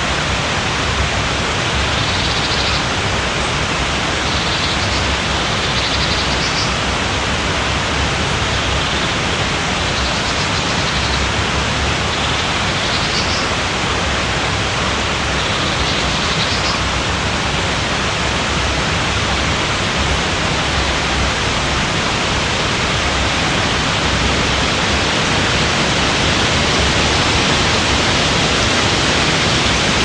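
River water running over rocks: a steady, unbroken rush with no pauses or changes.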